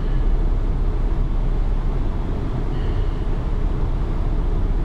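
Steady low wind noise buffeting the microphone on the open deck of a river cruise ship under way.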